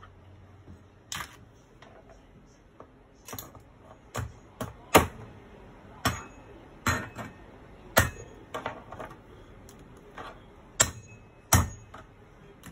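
Crab claws being pounded to crack them: about a dozen sharp knocks at irregular intervals, some with a short ring, the loudest about five seconds in.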